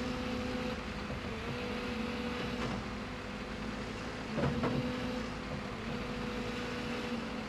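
Earthmoving machine's engine running at a steady pitch, with a few knocks about three seconds and four and a half seconds in.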